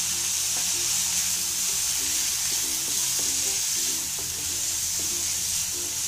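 Wheat vermicelli, onion, tomato, carrot and fresh ginger-garlic paste sizzling steadily in hot oil in a kadai, stirred with a wooden spatula, with a few faint knocks of the spatula against the pan.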